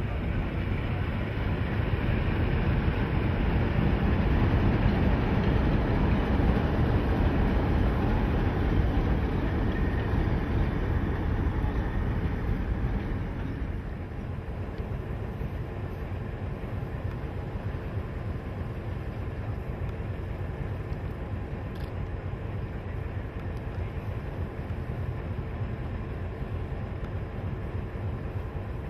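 NSW 44 class Alco diesel-electric locomotives hauling a passenger train past, a loud, dense engine rumble with the carriages rolling by. About fourteen seconds in it drops to a quieter, steadier train sound.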